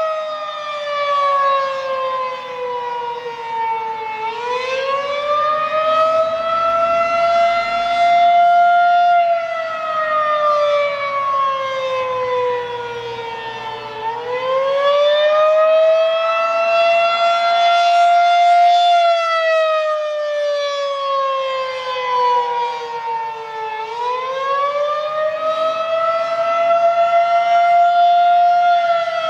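Federal Signal 2001-SRN electromechanical outdoor warning siren sounding the attack signal. Its wail rises in pitch for about five seconds and falls for about five, repeating three times.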